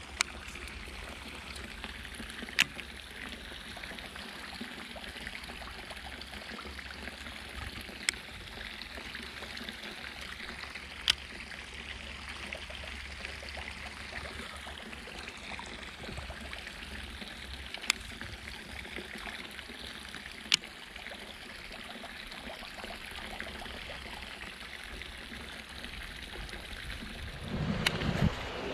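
Steady trickling and rushing of water in a concrete irrigation canal, with a sharp click now and then. About a second before the end it gives way to a louder, lower rush.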